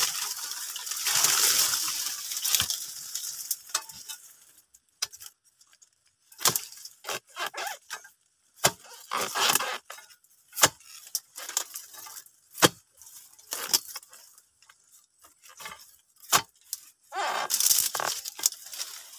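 Long-handled harvesting chisel chopping at the frond and fruit-bunch stalks of a young oil palm: a string of sharp, irregular chops about every one to two seconds. Dry fronds and leaf litter rustle near the start and again near the end.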